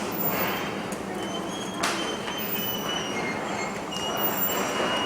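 Circuit-board assembly line running: a steady mechanical hiss and hum with thin, high squeaks that come and go, and a sharp click about two seconds in.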